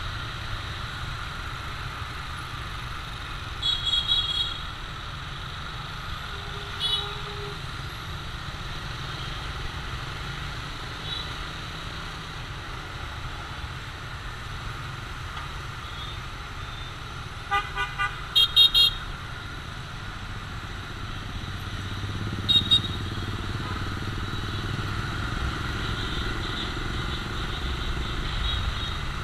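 Busy motorbike street traffic heard from a moving motorbike: a steady engine and road rumble, with horns tooting short beeps now and then, including a quick run of beeps midway.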